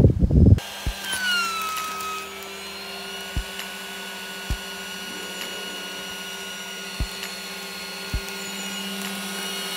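Small handheld electric air pump running steadily, sucking the air out of a plastic compression bag around a sleeping bag; its whine drops slightly in pitch as it starts, then holds. A brief rumble cut off sharply at the very start, and a few soft low knocks along the way.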